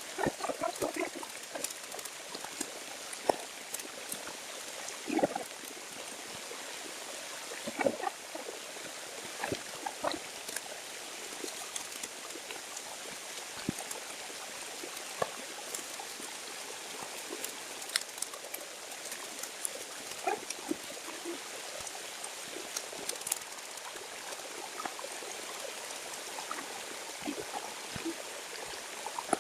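Small waterfall running steadily into a pool, with scattered sharp clicks and snaps throughout, a few louder ones in the first several seconds.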